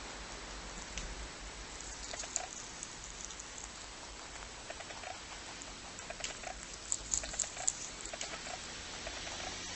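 Lop-eared rabbit chewing leafy greens: quick, soft crunching clicks in two spells, one about two seconds in and another from about six to eight seconds, over a steady hiss.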